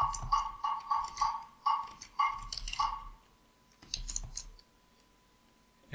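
Computer keyboard keys clicking as a few characters are typed: about eight separate keystrokes over three seconds, then a short quick flurry a little after four seconds.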